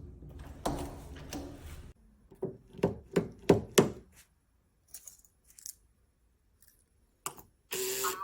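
Door lock hardware being handled: about five quick knocks and thunks in a row, then a few light clicks and a short burst of noise near the end.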